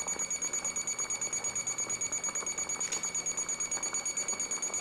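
Digital cooking thermometer's alarm beeping, a fast run of high-pitched beeps at about ten a second. It signals that the water in the pot has reached its target temperature of 212°F, the boil.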